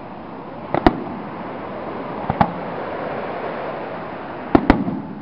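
Aerial fireworks shells bursting with sharp bangs: one about a second in, one near the middle, and two in quick succession near the end.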